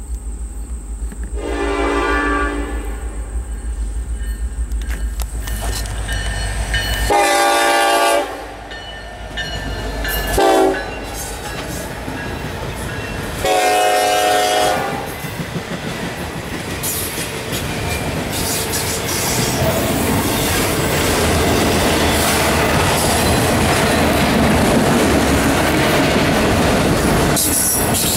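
Norfolk Southern diesel freight locomotives sounding a multi-chime horn in the grade-crossing pattern of long, long, short, long, with the engines rumbling as they draw near and pass. After that, autorack cars roll past steadily with wheels clicking over the rail joints. Crickets are heard before the first horn blast.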